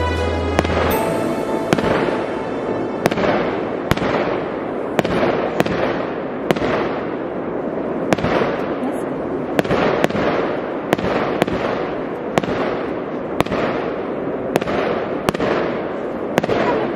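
Fireworks going off: a string of sharp bangs, roughly one to two a second, over a continuous crackling hiss of more distant bursts.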